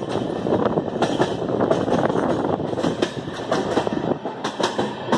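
Passenger train running at speed, heard from a coach window: a steady rumble and rush of air, with sharp, irregular clacks of the wheels over the rail joints.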